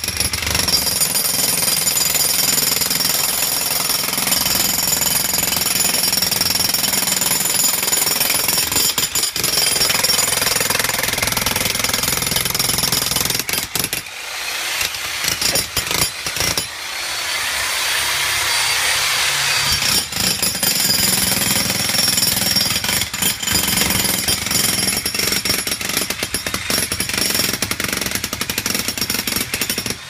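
Jackhammer pounding and breaking up a concrete slab, running almost continuously with brief pauses about halfway through.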